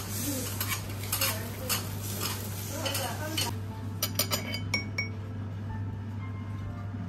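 Metal utensils scraping in rhythmic strokes about twice a second, then a few sharp ringing metal clinks about four to five seconds in, over a steady low hum.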